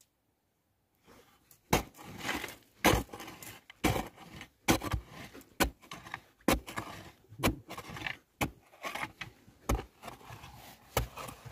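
A hand digging tool striking and scraping packed earth inside a narrow tunnel, about one sharp strike a second with scraping in between. It starts about a second in.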